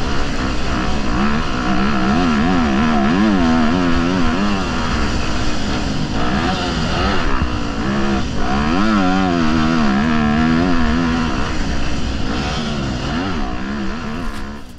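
Motocross bike engine being ridden hard, its pitch repeatedly rising and falling with the throttle. It fades out near the end.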